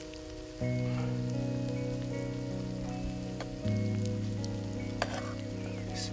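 Kupati sausages sizzling faintly in a hot frying pan, just off the heat. Louder background music of held chords plays over it, changing chord about a second in and again past the halfway point.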